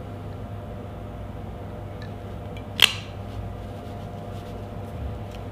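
A rotary leather hole punch squeezed through thick leather, giving one short sharp click about halfway through, over a steady low background hum.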